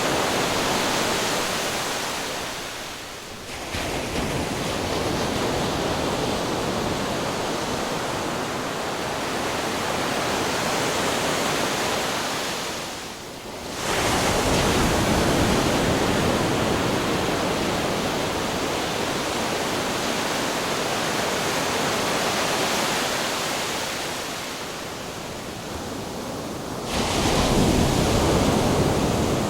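Ocean waves crashing against rocks: a continuous heavy wash of surf that swells with a fresh break about 3.5 seconds in, again about 14 seconds in, and once more near the end after a quieter lull.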